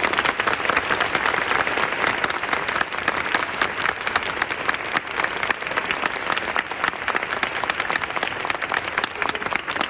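Stadium crowd applauding, a dense steady patter of many hands clapping.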